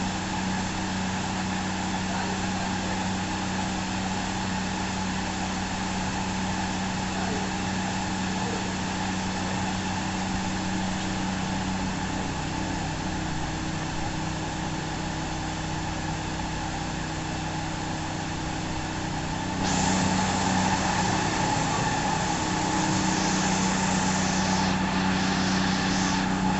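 CNC foam cutting machine running with a steady mechanical hum made of several held tones. About twenty seconds in, a louder hissing sound starts suddenly and carries on alongside the hum.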